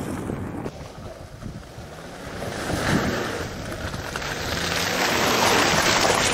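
Mazda CX-5 with the 2.2 Skyactiv-D diesel driving along a muddy track; engine and tyre noise grows louder as the car comes closer. Wind rumbles on the microphone throughout.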